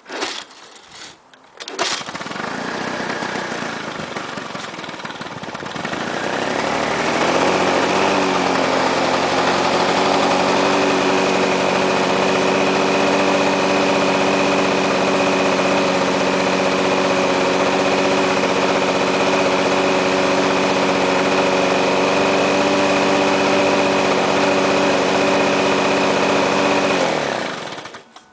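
1987 Lawnboy 8243AE two-stroke mower engine cold-started on choke with the pull cord: it catches about two seconds in, runs up to speed over the next few seconds and runs steadily, then is shut off shortly before the end.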